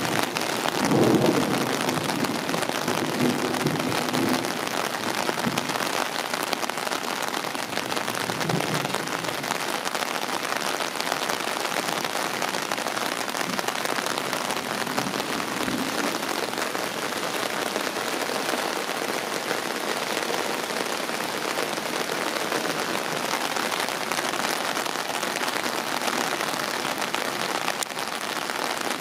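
Steady heavy rain falling on grass, leaves and yard, a constant even hiss. A low rumble of thunder carries through the first few seconds and fades away.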